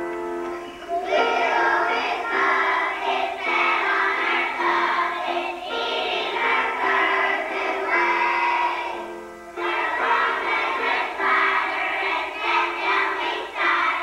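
A group of young children singing a song together over piano accompaniment. The piano plays alone at first and the children's voices come in about a second in, with a brief pause in the singing past the middle.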